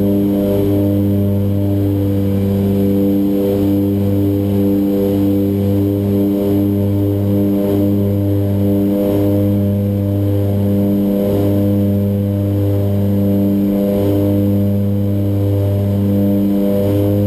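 North American Rockwell OV-10 Bronco's twin turboprop engines and propellers running steadily in flight, heard from inside the cockpit: a loud, deep, even drone that wavers briefly every second or two.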